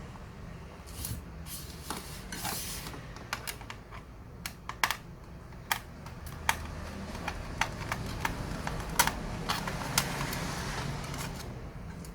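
Irregular small clicks and taps of plastic and metal parts of a Lenovo ThinkPad T410s laptop being handled during disassembly, over a low steady hum.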